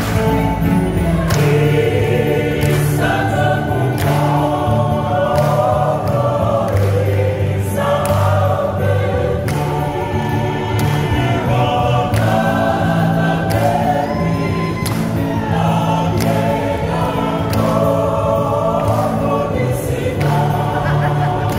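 Women's choir singing a Fijian song in several-part harmony, amplified through stage speakers.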